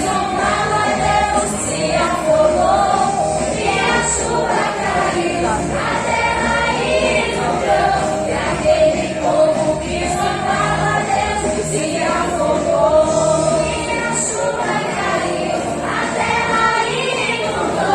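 Choir singing a song with music, the voices carrying steadily throughout.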